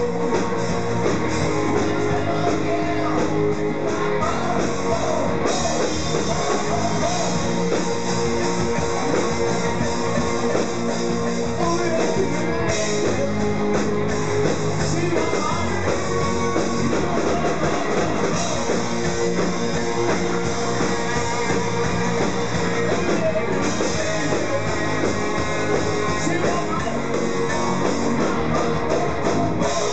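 Live rock band playing: electric guitars and drums with a singer.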